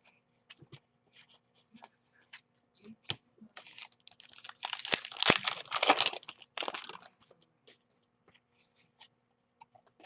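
A trading card pack wrapper being torn open and crinkled: a dense crackling tear lasting about three seconds in the middle, with scattered light clicks and ticks before and after.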